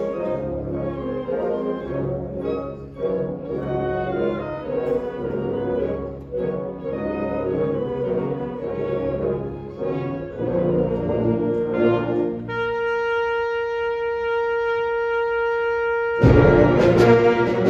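High school concert band playing: brass and woodwinds together for about twelve seconds, then a single note held alone for about four seconds, and near the end the full band comes back in loudly with a low drum stroke.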